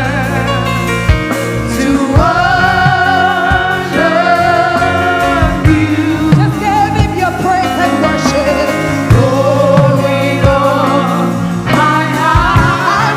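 Live gospel worship music: singers holding long, wavering notes over a band with drums and a steady bass.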